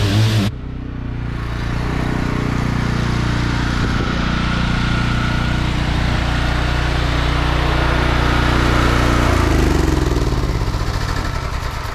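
Engine running steadily, its low note shifting about nine seconds in.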